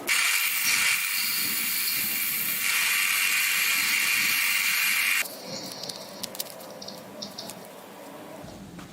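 AC TIG welding arc on aluminium: a steady hiss that rises a little partway through and cuts off after about five seconds, followed by faint light clicks.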